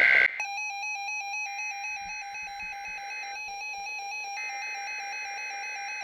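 NOAA weather radio receivers sounding a trilling electronic alert tone for a Required Weekly Test. Under it, the broadcast's SAME digital header data bursts screech twice, about a second and a half in and again at about four and a half seconds.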